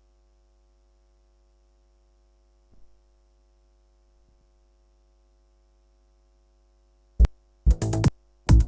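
Faint steady electrical hum for about seven seconds. Then an electronic trance track starts playing back in short choppy fragments that cut in and out, the sign of audio dropouts in the playback.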